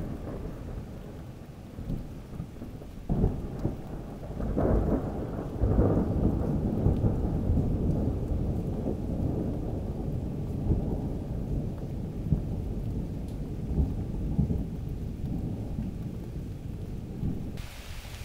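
Thunder from a nearby storm: a sharp crack about three seconds in, then a long, heavy rolling rumble that dies away near the end. Rain hisses underneath, coming up louder at the very end.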